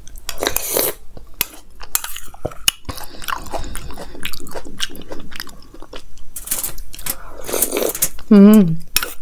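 Close-miked wet mouth sounds of someone eating soft fruit custard off a spoon: irregular smacking and chewing. Near the end comes a short, wavering "mmm" of enjoyment, the loudest sound.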